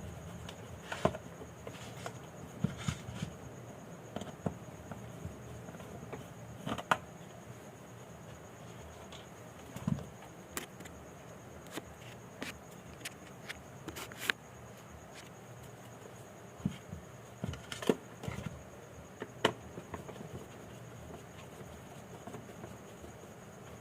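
Scattered small clicks and taps of hand tools and plastic parts as a Bajaj Pulsar 150 motorcycle digital meter is opened up by hand. A faint steady high tone runs underneath.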